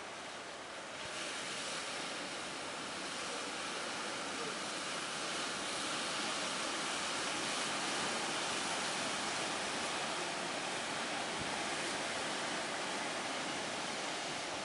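Sea waves and strong wind: a steady rush of noise that grows louder about a second in.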